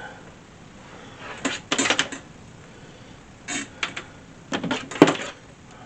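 Clattering and knocking of hard parts being handled as the diesel heater unit is shifted into a new position, in three short clusters with the sharpest knock near the end.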